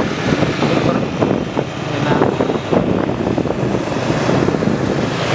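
Motor scooter running along a road at riding speed, with wind rushing and buffeting over the microphone.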